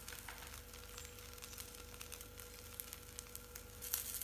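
Quiet room tone with a faint steady hum and a few faint ticks near the end.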